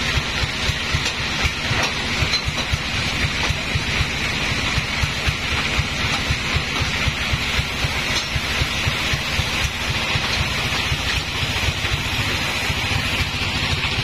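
Band sawmill machinery running steadily. An engine throbs fast and evenly at a low pitch, with a steady hiss above it.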